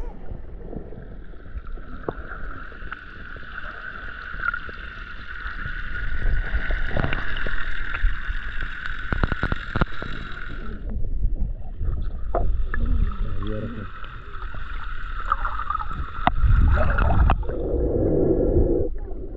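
Sea water heard through a camera held just under the surface: muffled sloshing and a low rumble, with scattered clicks and a steady high hiss that breaks off about eleven seconds in and returns a second later.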